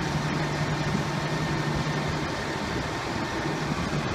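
A vehicle engine idling, a steady low hum that fades out a little over halfway through.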